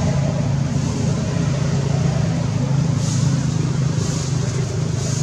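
A steady, low engine-like drone, as from a motor vehicle running, with no breaks.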